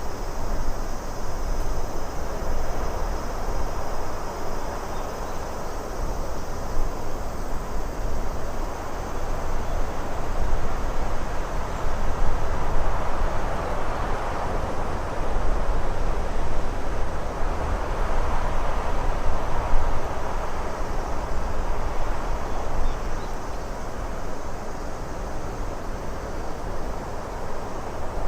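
Steady rushing noise of a lakeside ambient soundscape, with a low rumble beneath, swelling twice through the middle and easing again.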